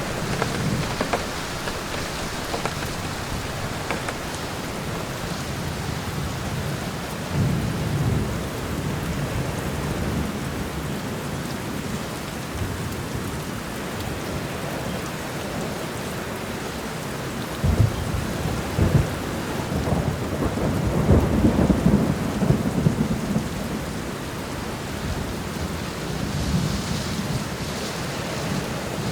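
Steady rain falling in a forest, with several low rolls of thunder; the longest and loudest rumble comes about two-thirds of the way through.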